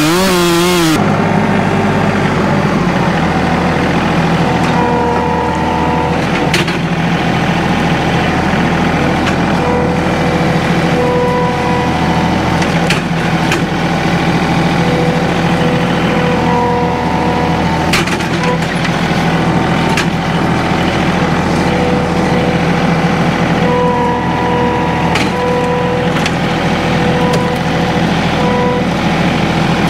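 A chainsaw runs for about a second, then gives way to the John Deere 2032R compact tractor's diesel engine running steadily. A higher tone comes and goes several times over the engine, and a few sharp knocks are heard.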